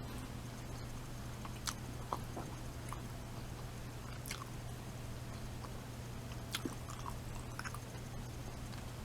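A person chewing and biting into baked pigs in a blanket, beef sausages in a well-browned, crunchy pastry, with a few sharp crunches scattered through. A steady low hum runs underneath.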